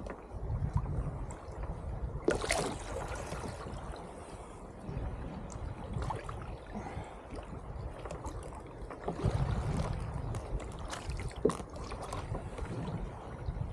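Water sloshing and gurgling against a fishing kayak's plastic hull, with scattered knocks and handling noises on the boat. There is a louder rustling burst about two and a half seconds in.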